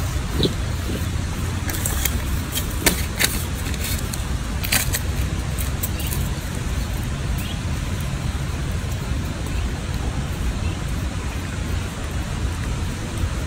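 Steady low outdoor rumble, like traffic or wind noise, with a handful of sharp clicks between about two and five seconds in.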